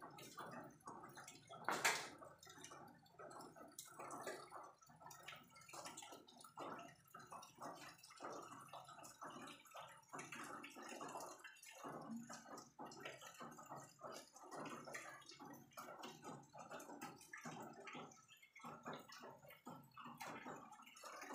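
Cat licking fur while grooming: a faint, irregular run of small wet licking clicks, several a second, with one sharper knock about two seconds in.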